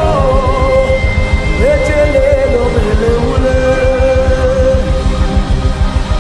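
Gospel worship music: a sung note trails off at the start, then long held tones carry over a steady low beat.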